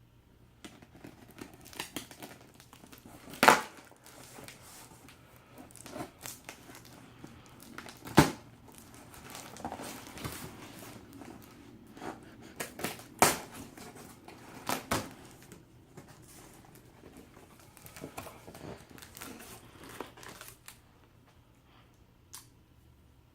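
Packaging being handled and opened: irregular crinkling, crumpling and tearing, with three sharp knocks louder than the rest. It dies away near the end.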